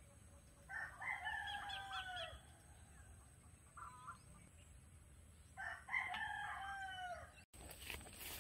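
A rooster crowing twice, faintly, about a second in and again about six seconds in, each crow under two seconds long and dropping in pitch at the end, with a short call between them.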